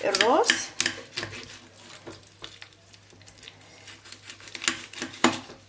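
Knife cutting through the head of a fesikh (fermented salted fish), heard as scattered sharp clicks and scrapes of the blade, some knocking against the plastic plate beneath.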